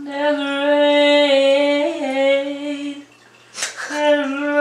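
A woman singing a long held note on one pitch for about three seconds, with a small bend in pitch midway, then a quick breath and a second long held note.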